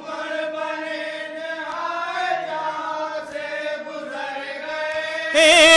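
Group of men chanting a noha refrain together in a slow lament, softer and less distinct than the solo voice. A single lead voice returns loudly near the end.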